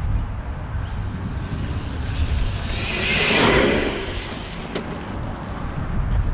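Arrma Vorteks 3S brushless RC stadium truck passing by at speed: a rush of motor and tyre noise that builds to a peak about three and a half seconds in, then fades. Steady wind noise on the microphone runs underneath.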